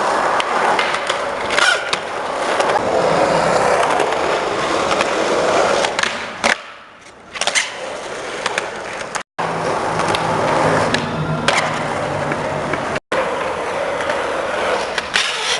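Skateboard wheels rolling on skatepark concrete, with sharp clacks from the board and trucks striking the ground. The rolling drops away for about a second midway, then picks up again, and the sound is broken twice by abrupt cuts.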